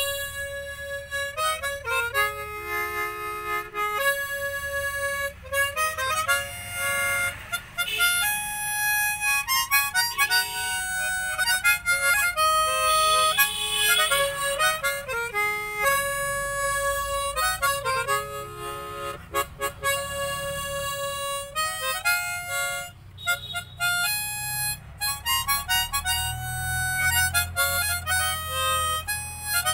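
Tower mouth organ (harmonica) played solo: a continuous melody of short and held notes, often several sounding together as chords.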